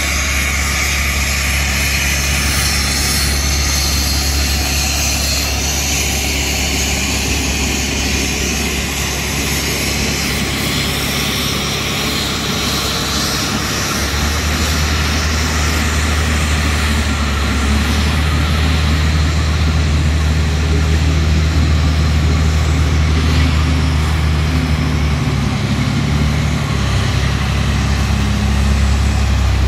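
Engine of a Douglas TBL280 towbarless aircraft pushback tractor running as the tug drives around, a steady low drone that grows louder from about halfway through as it comes closer.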